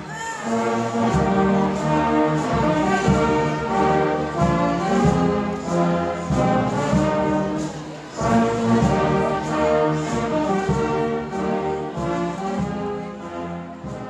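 A brass band with trumpets, saxophones, sousaphones and snare drums playing a tune together, with sustained brass chords over steady drum strokes.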